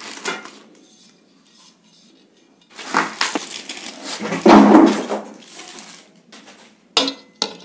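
White-painted steel shelf parts of an IKEA Lerberg unit clanking and scraping against each other as they are lifted out of the box. The loudest clatter comes about halfway through, with two sharp knocks near the end.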